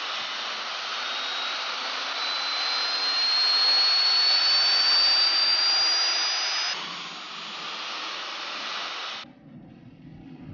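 Jet aircraft engine noise, a loud rush with a high whine that climbs slowly in pitch. The whine stops about two-thirds of the way in, and the rush cuts off suddenly near the end, leaving a quieter low rumble.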